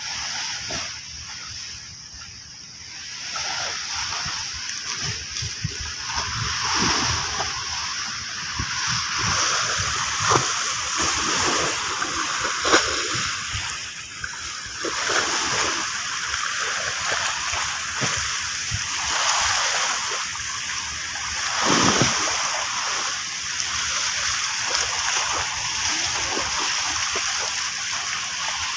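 Waves washing in and splashing, a continuous rush of water broken by many small splashes, with the surge swelling and easing.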